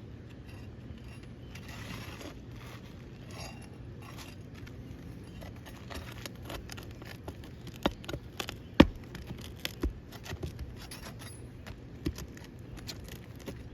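Hand tool working the last nails out of roof shingles: metal scraping near the start, then a run of sharp clicks and knocks, the loudest about nine seconds in.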